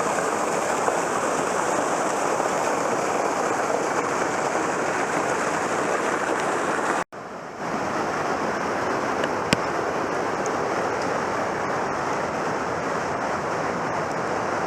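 Steady rush of a small creek running in flood after heavy rain, two to three feet above its usual trickle. The sound cuts out for a moment about halfway through, then resumes.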